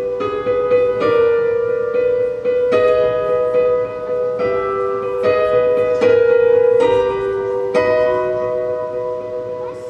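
Show music on piano or keyboard: a slow melody over held chords, with a new note or chord struck about every second.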